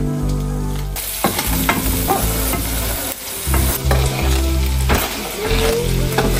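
Chopped onion sizzling and frying in hot oil in a nonstick pan, the hiss starting about a second in, with scrapes and knocks of a knife pushing onion and then diced tomato off a plastic cutting board into the pan.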